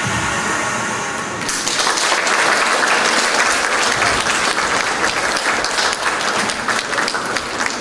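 The last notes of the dance music die away, and about one and a half seconds in an audience breaks into sustained applause.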